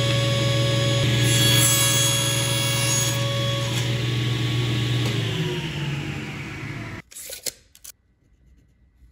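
Table saw running steadily while crosscutting thin Baltic birch on a sled. About five seconds in it is switched off and winds down with falling pitch. A couple of seconds later the sound stops abruptly, leaving near silence with a few faint clicks.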